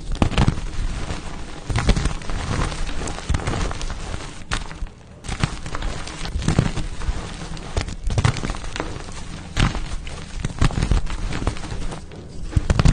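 Pasted gym chalk blocks being crushed and crumbled: a dense run of crunches and crackles, with short lulls about four and a half seconds in and near the end.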